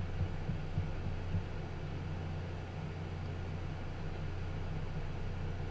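Shuttle SZ87R6 small-form-factor PC running during its BIOS POST: a steady fan whir over a low hum, with a few faint knocks in the first second and a half.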